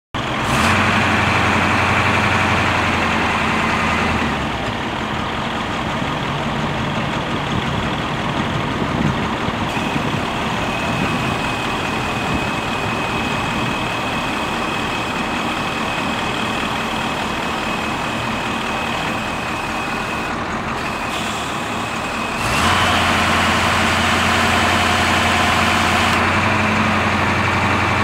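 1982 Ford 8000 crane truck's 8.2-litre V8 diesel running steadily, powering the crane's hydraulics while the boom is worked. The engine is louder for the first few seconds and again over the last several seconds, and a thin high whine runs through the middle stretch.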